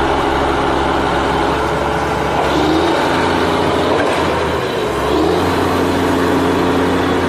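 Vehicle engine running steadily, its pitch shifting slightly around three and five seconds in.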